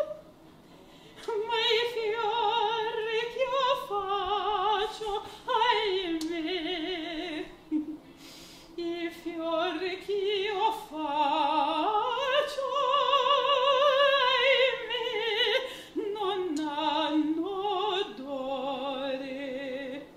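A woman singing opera without accompaniment in a full classical voice with a wide, even vibrato. She sings several sustained phrases that rise and fall in pitch, separated by short pauses for breath.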